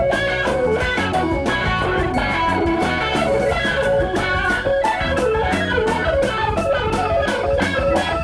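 Instrumental passage of a 1976 progressive rock recording: an electric guitar plays a lead melody over bass guitar and a steady drum beat.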